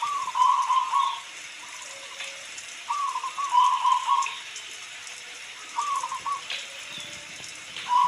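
Zebra dove (perkutut) singing: three phrases of quick, rippling coos, the last one shorter, over a steady hiss of rain.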